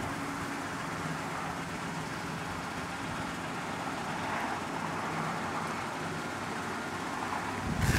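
A steady low engine hum under an even background hiss, with no changes in level.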